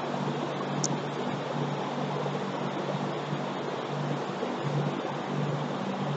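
Steady mechanical running noise with a low hum, from machinery running during an A/C service.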